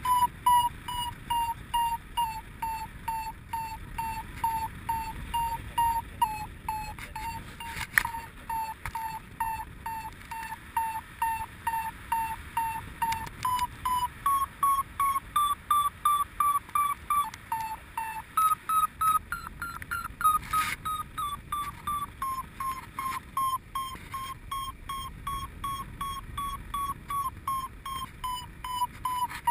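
Paragliding variometer beeping its climb tone, a steady string of short pitched beeps that signal the glider is in rising air; a little past the middle the pitch rises and the beeps come faster, marking stronger lift, then settle back. Wind rushes on the microphone underneath, with one sharp click about eight seconds in.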